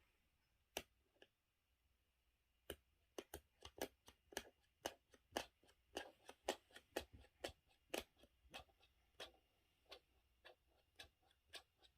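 Baby making soft, irregular clicking noises in a quiet room, sparse at first, then several a second from about three seconds in.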